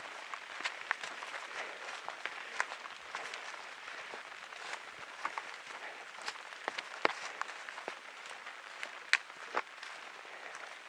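Light rain pattering on an umbrella held overhead: a steady hiss with many irregular sharp drop ticks.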